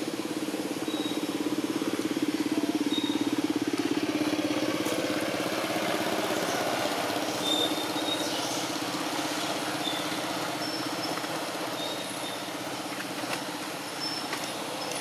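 Low, steady engine drone of a passing motor vehicle, swelling over the first few seconds and then slowly easing, with a few brief high chirps over it.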